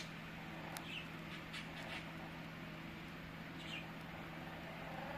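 Amazon parrot making a few short, faint squeaks and clicks, spaced out, with a steady low hum behind.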